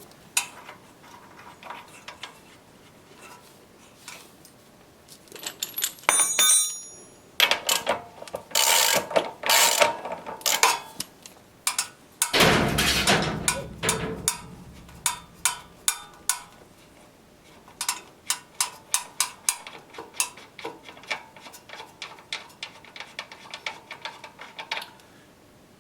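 Spanners clinking, scraping and clicking on the rear axle nut and chain adjuster bolts of a Royal Enfield Classic 500 as they are loosened. There is a louder knock and rumble about halfway through, and a run of quick, even clicks near the end.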